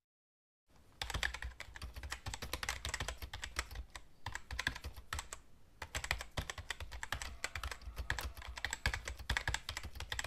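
Rapid keyboard typing clicks, a sound effect laid under caption text that appears letter by letter. The clicks begin just under a second in and run in quick runs, with short pauses about four and five and a half seconds in.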